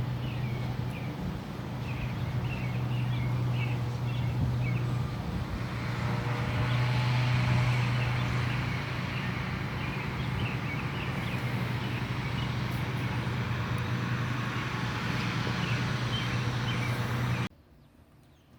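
A steady low motor-like hum with short bird chirps over it, cut off suddenly near the end.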